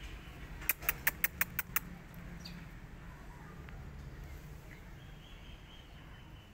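A quick run of about seven sharp clicks, about six a second, lasting about a second, over a low steady background rumble.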